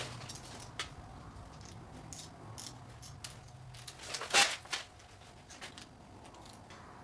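Socket wrench tightening a lower intake manifold bolt on a GM 3800 V6: scattered metal clicks of the ratchet and socket, with a louder clack or two about four and a half seconds in.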